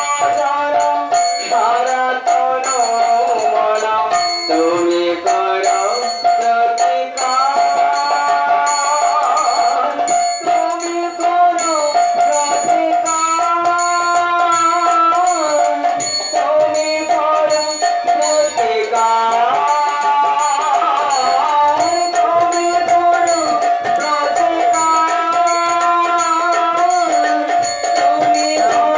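Devotional kirtan: a harmonium plays a melody over a steady held note, with a man's voice singing along, while small brass hand cymbals (kartal) clash in a quick, steady rhythm.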